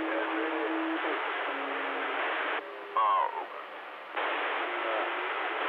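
CB radio receiver hissing with static, faint traces of distant stations in the noise. About two and a half seconds in, the hiss drops out as a strong signal comes on, with a short loud warbling sound. The hiss returns about a second and a half later.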